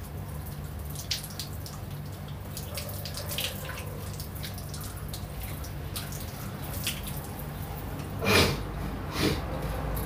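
Water dripping in scattered light drops over a steady low hum, with two short, louder noises near the end.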